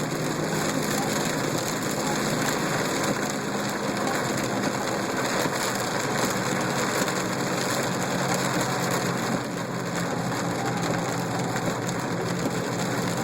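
Heavy rain hitting a moving car's roof and windshield in a steady hiss, with a low, steady hum from the car underneath.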